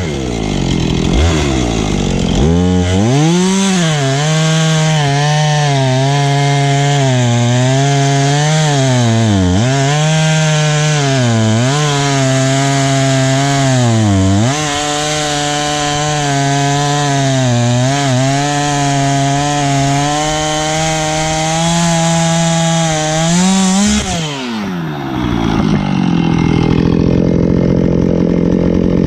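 Husqvarna 450 Rancher two-stroke chainsaw revving up to full throttle and running hard for about twenty seconds, its pitch dipping and wavering again and again as the chain bites into wood. Near the end the revs drop away, and a lower, steadier engine note takes over.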